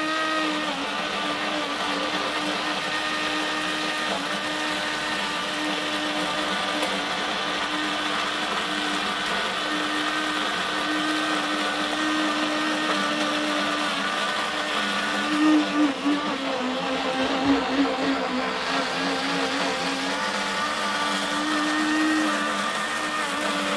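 Handheld electric immersion blender running steadily with a motor whine as its blade churns pancake batter in a stainless steel bowl. Its pitch dips and wavers briefly past the middle.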